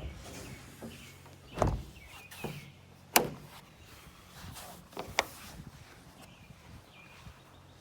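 Knocks and clicks of hardware being handled at a pickup truck's bed: a dull thump, then a sharp clack (the loudest), then two lighter clicks in quick succession.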